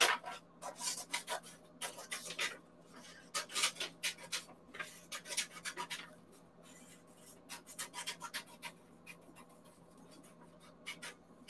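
Scissors cutting around a printed sheet of paper: runs of short, crisp snips, broken by a couple of brief pauses.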